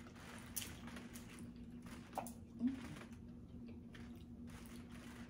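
Faint eating sounds: a few small clicks and squishes of seafood being handled and chewed, over a steady low hum.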